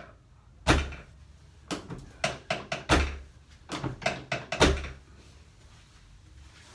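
Chiropractic adjustment at the sacrum on a treatment table: three heavy thuds about two seconds apart, each preceded by a quick run of sharp clicks.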